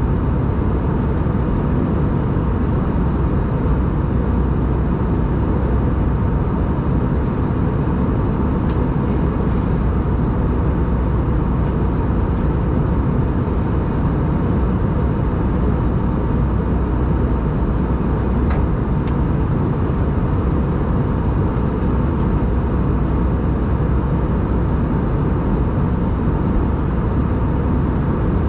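Airbus A320 cabin noise at cruise: a steady rush of airflow and jet engine drone, heavy in the low end, with faint steady high tones.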